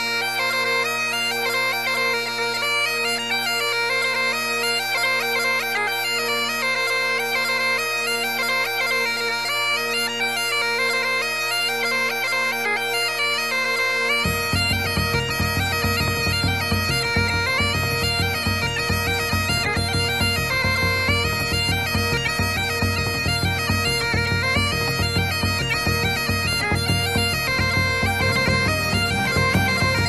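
Bagpipe music: a melody played over a steady drone. About halfway through, a dense low noise comes in beneath it.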